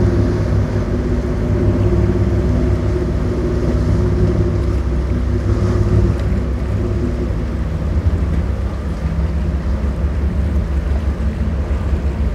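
Sportfishing boat's inboard engines droning steadily as it runs through choppy inlet water, with waves and wind noise on the microphone. The engine tone is strongest in the first half and grows weaker as the boat pulls away.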